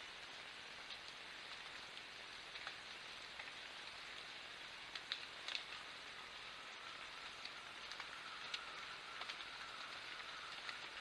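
Faint rainforest background: an even hiss with scattered light ticks, and a faint steady high tone that comes in about halfway through.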